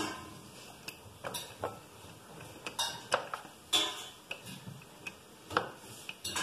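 Wooden rolling pin working pizza dough on a plastic board: irregular clacks and knocks as the pin and its handles rock and bump against the board, the loudest about halfway and near the end.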